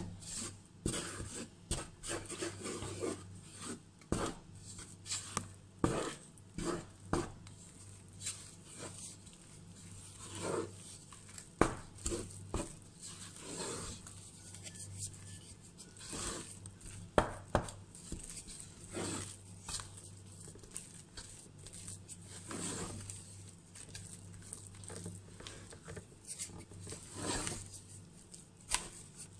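Wooden spoon stirring flour into a wet yeast mixture in a metal bowl, mixing bread dough: irregular scraping against the bowl with knocks of the spoon on the side, a few louder than the rest.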